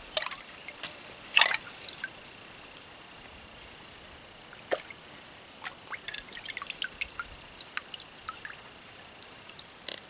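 Water splashing and dripping as a plucked bird carcass is dipped and rinsed in a shallow stream, in irregular splashes, the loudest about a second and a half in and a run of smaller ones past the middle.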